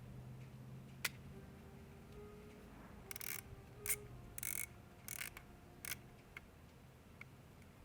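Disposable film camera: the shutter clicks once about a second in, then the film-advance thumbwheel is wound in several short scraping strokes between about three and six seconds in, with a couple of small ticks after.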